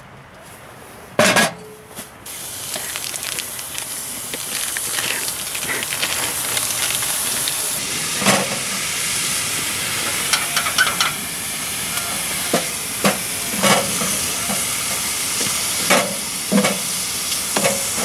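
A loud clunk about a second in, then ground beef sizzling steadily in a skillet on a wood stove, with repeated scrapes and knocks as a utensil breaks up the meat in the pan.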